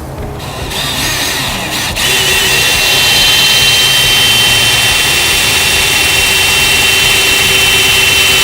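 Power drill boring a pilot hole through the sheet-metal body panel of a 2005 Dodge Sprinter van. It runs up over the first two seconds, then holds a loud, steady, high whine and stops suddenly at the end.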